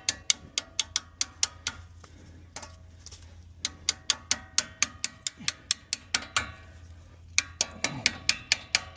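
Brake caliper pad retaining pin being tapped into place, metal striking metal: runs of quick taps, about four a second, each with a short ring, in three bursts with pauses between.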